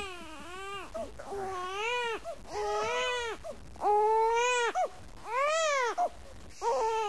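Infant crying in a string of short, high wails, each rising and falling in pitch, with brief catches of breath between them.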